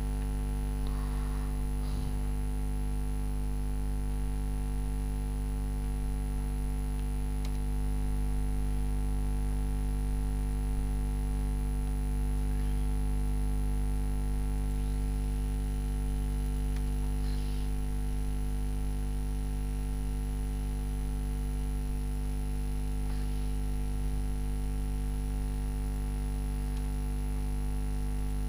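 Steady electrical mains hum with its overtones, picked up by the recording setup, with a few faint clicks.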